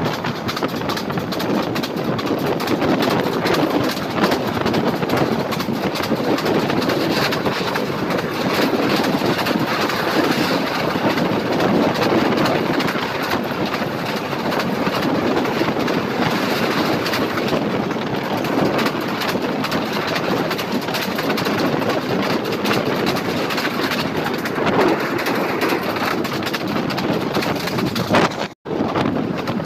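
Passenger train running at speed, heard from one of its own coaches with the camera out of the window: a steady rumble of wheels on rails mixed with rushing air. The sound cuts out for a moment near the end.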